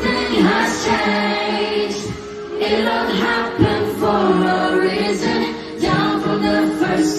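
Background music: a song with singing voices over sustained instrumental chords.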